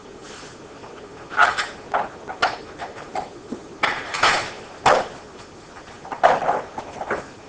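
Irregular clicks, knocks and short scrapes of an A-bike's crankcase being levered off its chassis and handled, hard parts knocking together.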